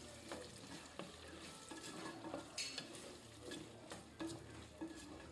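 Sliced onions frying faintly in hot oil in a clay pot while being stirred, the spoon giving scattered light scrapes and clicks against the pot.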